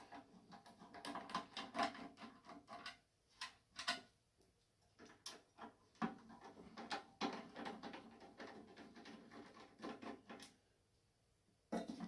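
Faint, irregular clicks and scrapes of a screwdriver turning screws out of a microwave oven's sheet-metal back panel, with knocks from hands handling the casing.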